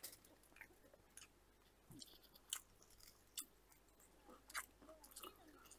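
Faint chewing of a bite of garlic fried chicken, with scattered soft crunches and small clicks at irregular moments.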